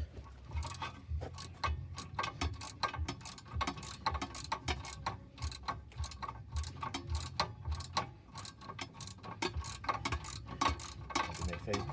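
Hand socket ratchet clicking in quick, uneven runs as a nut or bolt on a car's front strut assembly is turned off.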